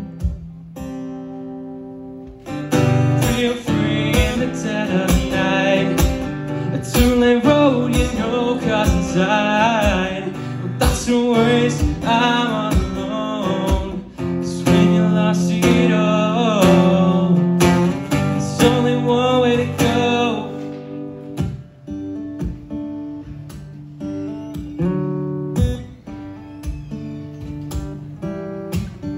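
Steel-string acoustic guitar strummed and picked in a live song, with a steady rhythm; it plays softer over the last several seconds.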